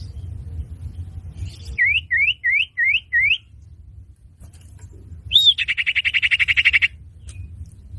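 Common iora (cipoh/sirtu) calling as a lure sound. Five quick upslurred whistles are followed, about two seconds later, by a single slurred note that runs into a fast rattling trill lasting about a second and a half. A low rumble runs underneath.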